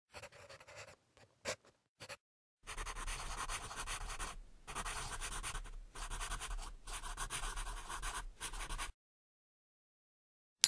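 Pencil scratching on paper in writing strokes. A few short strokes come in the first two seconds, then about six seconds of near-continuous scribbling broken by brief pauses, stopping about nine seconds in.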